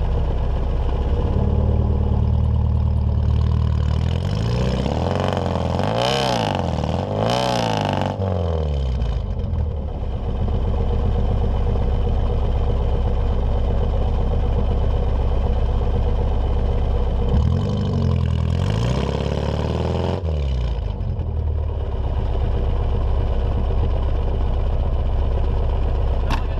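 Subaru EA81 flat-four on a Weber carburettor and dual straight pipes, running loud: idling, then revved up and down several times in quick succession about five seconds in, and twice more past the middle before settling back to idle.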